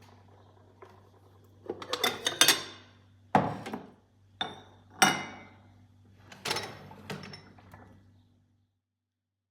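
Kitchen clatter: dishes and utensils knocked and set down in a string of sharp clinks and knocks, over a steady low hum that stops near the end.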